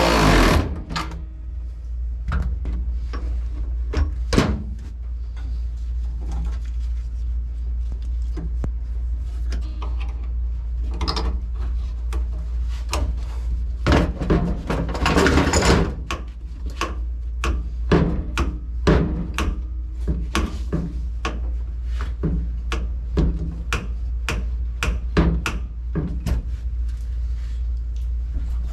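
Irregular clicks and knocks of hand tools and metal parts being worked while a throttle pedal and its adapter bracket are bolted in, with a few longer scraping bursts. A steady low rumble runs underneath.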